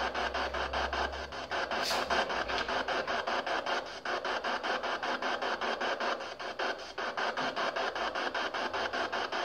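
PSB7 spirit box sweeping through radio stations, giving a steady, choppy hiss of static chopped into even pulses several times a second, with no clear word coming through.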